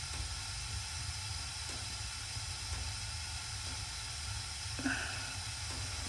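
Gas furnace burners firing with a steady hiss over a low rumble, the circulating blower not running: the owner says the blower seems to have quit. One short faint sound comes shortly before the end.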